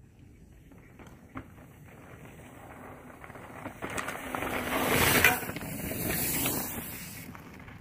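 Mountain bike rolling down a dirt and rock trail toward and past the camera: tyre and frame noise that grows, is loudest about five seconds in, then fades.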